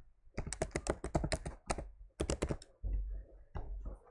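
Computer keyboard being typed on, a quick run of keystroke clicks entering an eight-character password, with a brief low thump about three seconds in.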